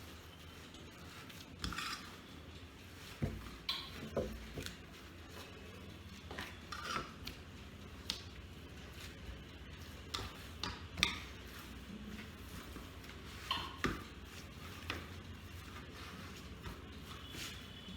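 Irregular light clinks and knocks of a bowl and kitchen utensils being handled, a dozen or so scattered through the stretch.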